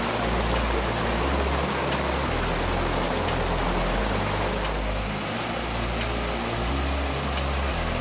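Waterfall cascading over rocks: a steady, even rush of water.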